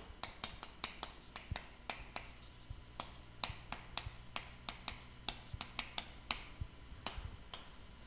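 Chalk writing on a chalkboard: faint, quick, irregular taps and clicks as the chalk strikes the board with each stroke.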